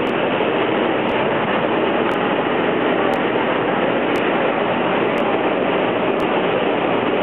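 Steady traffic noise of a busy city street.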